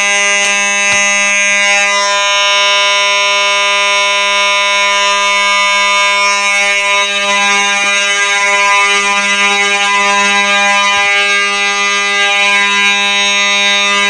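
Fire alarm horns sounding together in general alarm after a manual pull station is pulled, the Simplex 2901-9833 horn loudest. One steady, continuous horn tone with no pauses.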